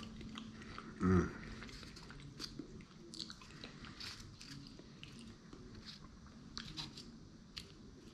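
A person chewing a mouthful of sushi close to the microphone, with many small wet mouth clicks. A short, louder low sound like a hum comes about a second in.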